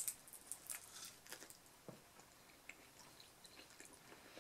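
A bite into a slice of pineapple pizza with a sharp crunch at the start, then faint, soft chewing with small crackly mouth sounds that thin out after a second or two.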